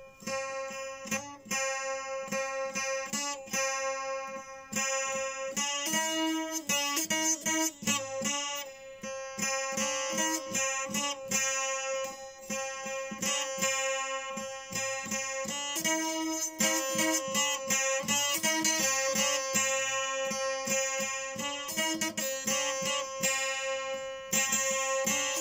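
Instrumental music led by a plucked string instrument strummed in a quick rhythm, with one steady note held underneath throughout.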